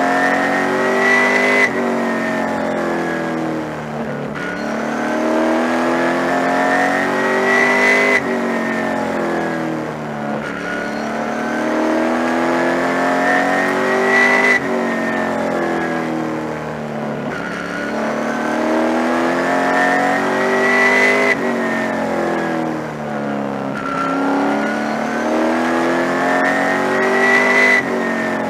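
Super Late Model race car's V8 engine heard from inside the car, accelerating hard down each straight and lifting off into each turn. The revs climb for a few seconds, then drop sharply, in a cycle repeating about every six and a half seconds, four times over.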